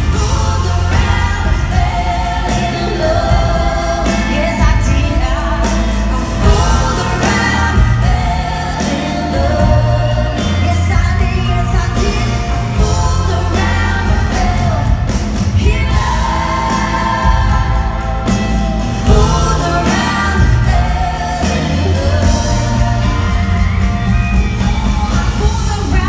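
Live country-rock band playing with several women's voices singing the lead and harmony, over a steady bass and drum beat.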